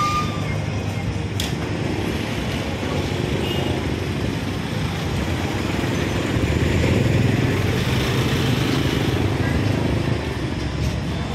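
Busy street ambience: motorbike and scooter traffic running past with the background chatter of passers-by, growing louder for a few seconds past the middle.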